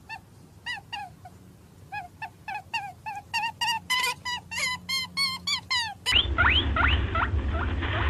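Rabbit squeaking: a quick series of short, high squeaks, a few a second at first and coming faster after about two seconds. About six seconds in it switches to a louder recording of rising squeaks over a steady low rumble.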